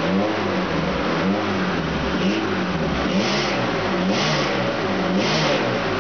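Opel GT's fuel-injected 2.4-litre four-cylinder engine revved by hand at the throttle in quick blips about once a second, each rise in pitch with a rush of intake air. The owner finds it not quite so easy to rev.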